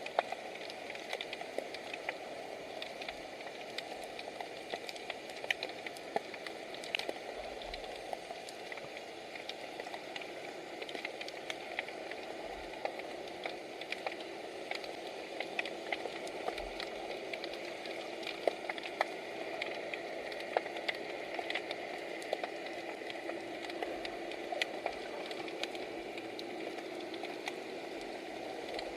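Underwater ambience: a steady hiss of water with many scattered sharp clicks and crackles.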